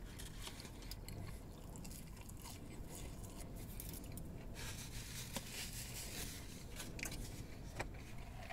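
A person chewing French fries close to the microphone, with small clicks. From about halfway through there is a light rustling as the paper bag and foil wrappings are handled.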